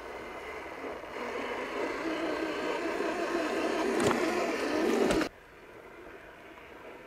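Electric motor and gearbox of a radio-controlled scale truck whining as it crawls through mud, growing louder as it comes closer, with two sharp knocks. The sound cuts off suddenly about five seconds in, leaving a quieter background.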